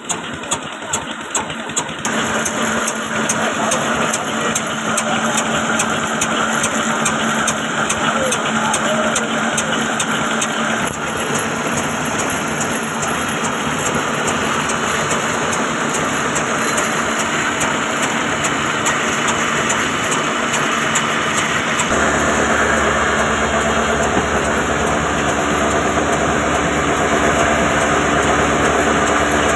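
Old slow-running black diesel engine (a 'kala engine') driving a flour mill through flywheel and belts. It gives a steady beat of about three knocking strokes a second over the whirring and rattling of the mill machinery, which grows fuller and deeper in the later part.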